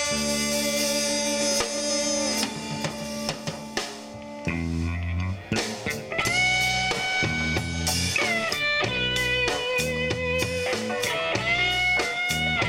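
Live blues-rock band of two electric guitars, electric bass and drum kit playing an instrumental intro. A guitar chord rings out at first. About four and a half seconds in, the bass riff and drums come in, with guitar notes that bend up in pitch.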